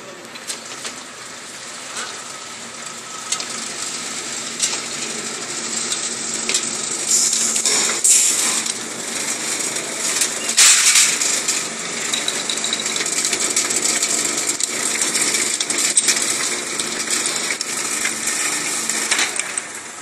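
Roll forming machine running, its forming rollers shaping a metal strip into a grooved bracket profile: a steady mechanical hum under constant rattling clicks, growing louder and hissier twice near the middle.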